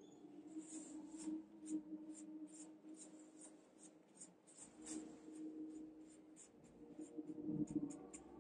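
Faint scratchy strokes of a small paintbrush working paint into fabric, short and quick, about three a second.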